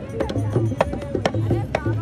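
Traditional percussion music: sharp strikes at an uneven pace over a low steady drum tone, with voices of a crowd around.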